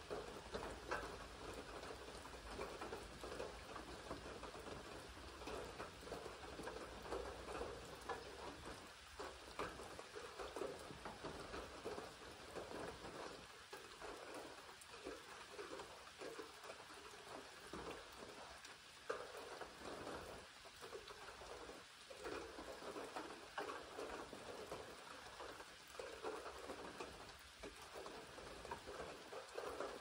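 Steady rain falling, with many separate drops striking close by.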